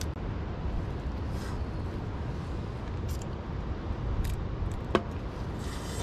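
Steady wind rumble on the microphone, with faint sips as a man drinks the juice from inside a cooked crab's shell, and one sharp click about five seconds in.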